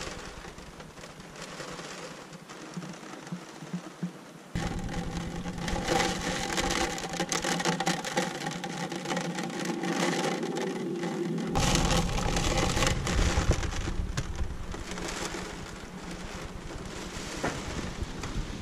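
Torrential rain and strong storm wind heard from inside a sailboat's cabin: a dense rushing hiss of rain and gusts. It grows suddenly louder about four seconds in, with a deeper rumble of wind buffeting coming in later.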